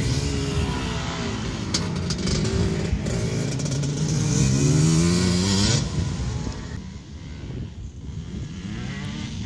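Enduro motorcycle engine revving and accelerating over a dirt course, its pitch climbing again and again as the rider opens the throttle. The engine sound drops away suddenly about six seconds in, leaving a fainter, more distant engine.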